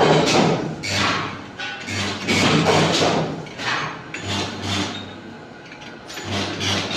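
Electric arc welding in short bursts: the arc crackles with a low buzz, stopping and starting several times.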